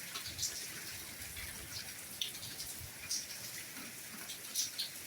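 Soft rain falling: a steady hiss with scattered drops ticking irregularly.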